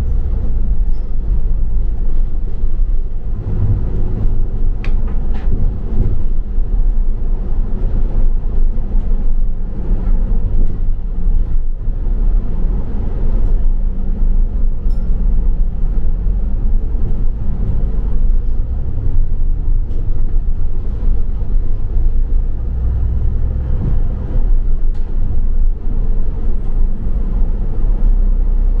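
Steady low rumble of a double-decker bus's engine and running gear, heard from inside the bus, with a few light clicks and rattles.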